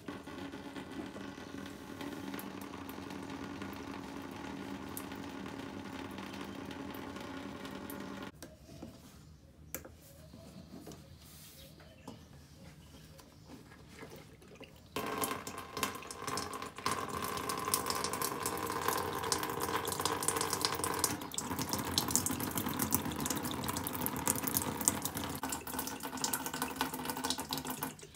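Liquid draining from the bottom drain screw of a fuel water separator bowl and pouring into a plastic bucket. The steady stream drops to a faint trickle for several seconds about a third of the way in, then runs harder and louder from about halfway.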